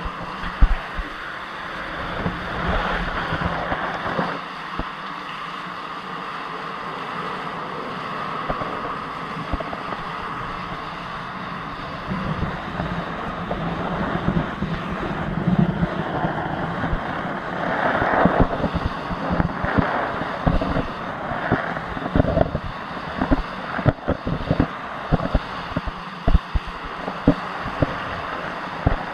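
Water rushing and churning through a turning Archimedes screw, heard from a camera inside the screw's channel, with a faint steady hum underneath. Sharp knocks and splashes come more and more often in the second half.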